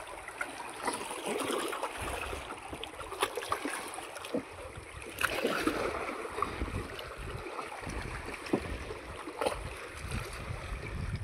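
Small waves lapping and trickling against a stone shore, with wind gusting on the microphone and scattered sharp clicks.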